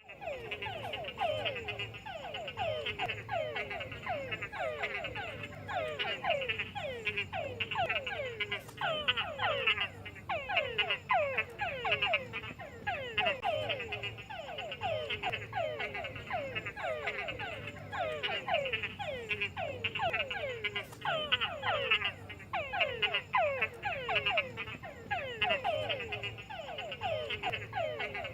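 A chorus of frogs croaking: many overlapping short calls, each falling in pitch, several a second, going on steadily.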